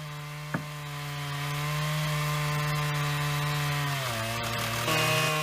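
Chainsaw on an Alaskan chainsaw mill running at steady high revs while ripping a silver maple log into slabs. A little after four seconds in, the engine note dips, then climbs back about a second later.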